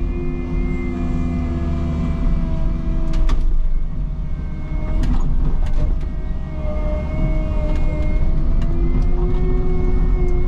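Cat 306 mini excavator's diesel engine running under hydraulic load, its pitch dipping and recovering as the machine works. A few sharp knocks are heard along the way.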